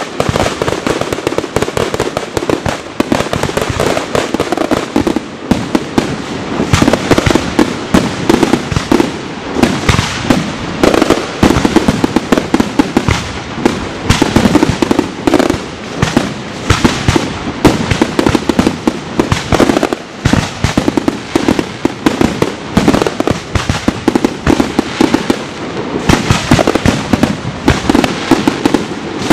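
Fireworks display in a dense barrage: aerial shells and multi-shot cakes bursting with many bangs and crackles a second, without a pause.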